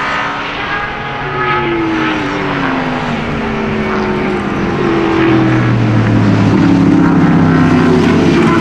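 A pack of sports sedan race cars running through a corner together, several engine notes overlapping. The notes fall in pitch over the first few seconds, then hold steadier and grow louder as the pack closes in.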